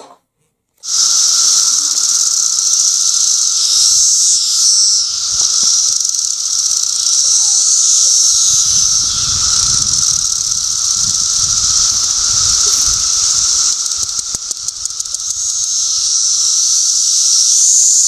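Dense chorus of male 17-year periodical cicadas (Brood X) singing: a loud, steady high-pitched hiss with a lower drone underneath, starting about a second in. A fast pulsing rises out of it for a couple of seconds near the end.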